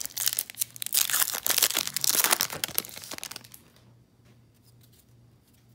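A baseball card pack's foil wrapper being torn open and crinkled, a dense crackling that dies away about three and a half seconds in.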